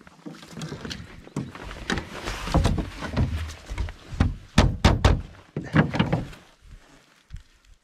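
Wooden club striking a fish held against the boat: three quick sharp knocks about four and a half seconds in and another a second later, the fish being stunned after it is taken from the gillnet. Before the knocks come rustling and duller knocking as the net and fish are handled in the boat.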